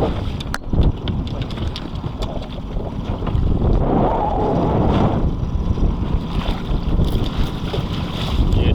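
Strong wind buffeting the microphone in an open boat on a lake, a rough, gusting rumble, with a few sharp clicks about half a second in and a stronger gust or rush about four seconds in.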